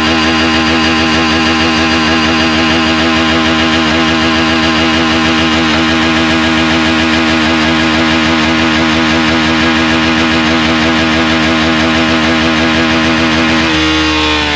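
Hero Xtreme 160R's single-cylinder engine running at a steady, held throttle to blow river water out of the exhaust after a deep water crossing. Near the end the revs begin to drop.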